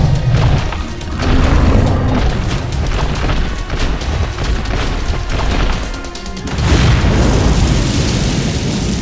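Dramatic soundtrack music laid under heavy boom and explosion sound effects, swelling loud about a second in and again near seven seconds.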